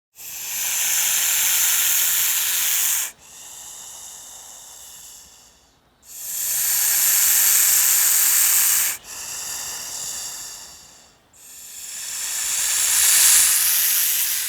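A snake hissing: three long, loud hisses of about three seconds each, every one followed by a quieter, softer hiss before the next.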